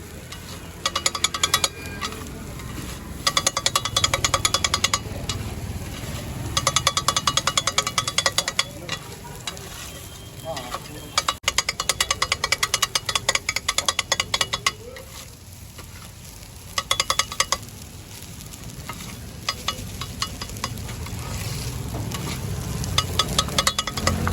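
Two flat steel blades chopping kothu parotta on an iron griddle: bursts of rapid, ringing metal clanging, with short pauses between runs, over the sizzle of the frying food.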